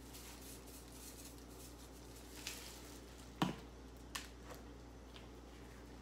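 Quiet kitchen handling sounds: a few light clicks and knocks, the loudest a dull knock about three and a half seconds in, over a steady low hum.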